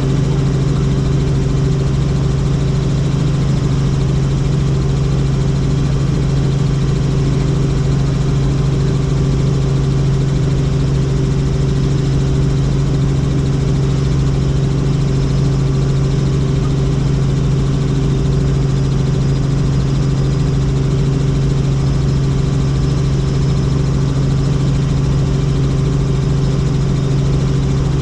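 Helicopter in flight: engine and rotor noise as a loud, steady drone with a strong low hum that does not change.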